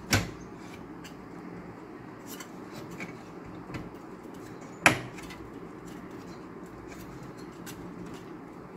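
Metal CPU heatsink being handled and seated onto the motherboard: two sharp knocks, one right at the start and a louder one about five seconds in, with faint handling ticks between.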